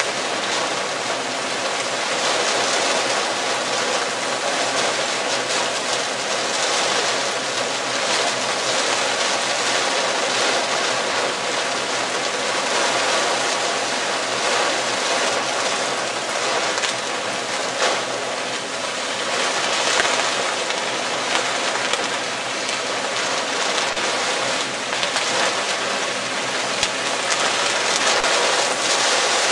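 Storm wind gusting hard, a steady dense rushing noise that swells slightly now and then.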